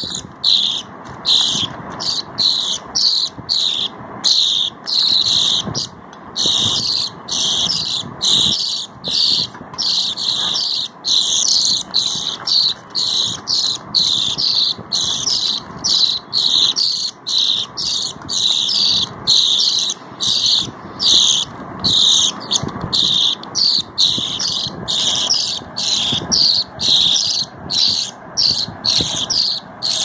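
Several baby budgerigar chicks calling non-stop in high-pitched chirps, about two calls a second.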